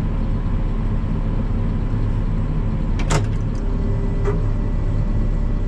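Tractor engine running steadily while pulling the forage chopper through corn silage, a continuous low drone. A single sharp click comes about three seconds in.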